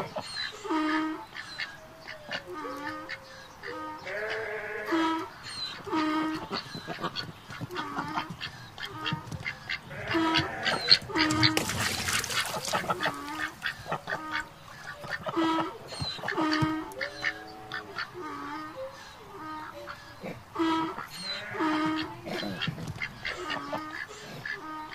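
Short animal calls repeated about once every second or so, with a burst of rustling noise about halfway through.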